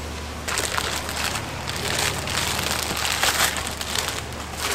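Clear plastic wrap crinkling and rustling as it is handled, a dense crackle that starts about half a second in and stops just before the end.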